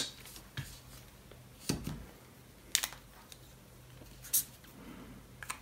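A handful of short, sharp clicks about a second apart in a quiet small room: desk-top handling of multimeter test probes and a marker pen as the test result is marked down.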